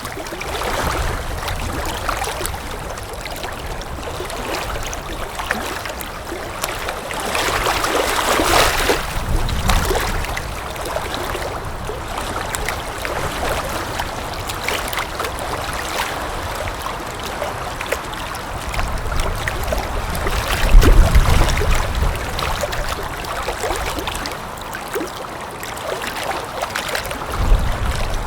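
Steady rushing, water-like noise with scattered crackles, swelling twice into low rumbling surges, about two-thirds through and again near the end.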